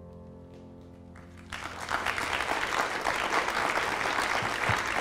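The last chord of a grand piano dying away, then audience applause breaking out about a second and a half in and continuing steadily.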